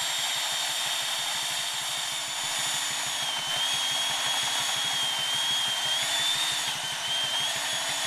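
Chainsaw running at full throttle, cutting into the trunk of a large ash tree. Its high whine dips a little about three seconds in and then wavers as the chain works in the cut.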